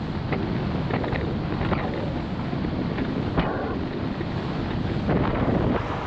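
Wind rushing over the microphone on a small motorboat under way across calm water, over the steady running of the boat and its passage through the water, with a few brief splashes against the hull.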